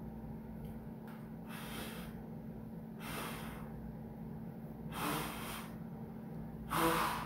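A man drawing four sharp, breathy gasps about a second and a half apart, the last one the loudest and voiced, as if in shock.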